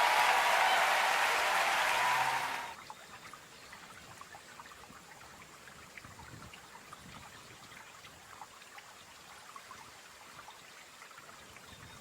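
Audience applause that cuts off suddenly a little under three seconds in, leaving a faint valley stream flowing and trickling over rocks.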